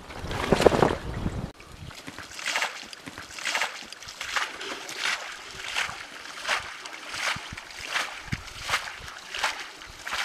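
Regular scraping strokes about every 0.7 s as dry, crumbly earth is dug out around a frog burrow. A short louder stretch of water being stirred in a muddy pool comes first and stops abruptly.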